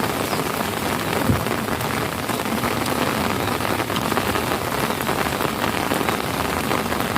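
Steady rain falling, many small drop impacts over a continuous wash, with a single low thump about a second in.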